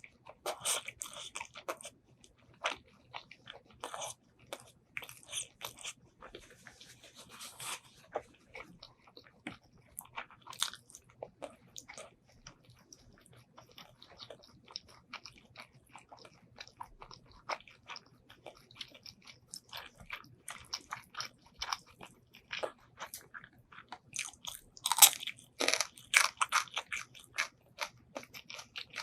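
Close-up eating sounds: a person biting and chewing braised pork ribs and rice, with wet smacking and crunchy bites throughout and a louder run of crunches near the end.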